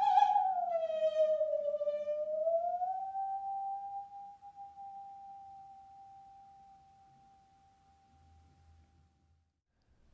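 Singing saw bowed with a violin bow: one eerie sustained note that slides down, glides back up, then holds and slowly fades away as the blade rings on after the bow is lifted.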